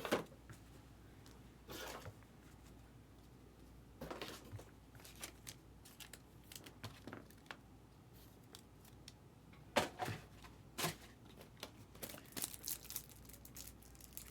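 Trading card pack wrappers being torn open and crinkled, with scattered clicks of cards being handled. There are short scattered tears at first, and the crinkling grows denser and busier near the end.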